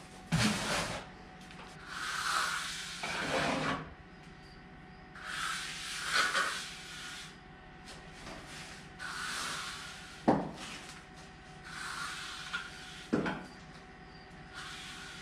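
A trowel scraping and spreading dry-pack cement mortar in a shower pan: repeated rasping strokes a second or two long, every few seconds, with two sharp knocks in the second half.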